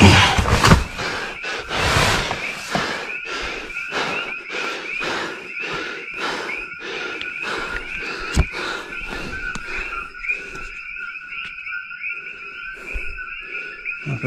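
Night chorus of coqui frogs, a dense steady chirping. Over it runs a series of short noisy strokes, about two a second, loudest in the first two seconds and thinning out after about ten seconds.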